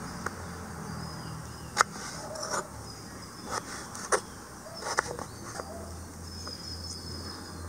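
Kitchen knife slicing raw peeled potato into thick sticks on a wooden chopping board: several sharp, irregularly spaced knocks of the blade going through and striking the board, the loudest about two seconds in.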